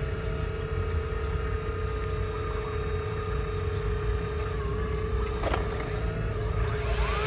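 Hydraulic pump of a radio-controlled CAT long-boom excavator model whining steadily as the boom and arm move, with a single click about five and a half seconds in.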